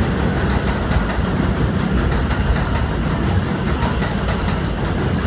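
R160 New York subway train running past on an elevated express track, its wheels and cars making a steady, loud rail rumble as the cars go by.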